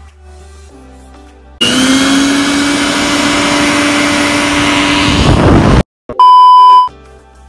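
Loud whirring of a small electric motor, with a hum that rises slightly, for about four seconds before it cuts off suddenly. After a brief gap, a steady TV test-pattern beep sounds for under a second.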